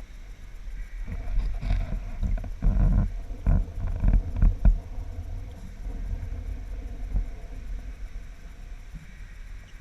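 Water sloshing and splashing close to the microphone, with irregular low surges and a few knocks.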